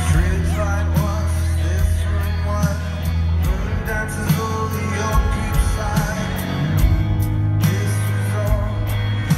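A live band playing a song, heard from the crowd: drums, sustained bass notes and electric guitar, with a male lead voice singing.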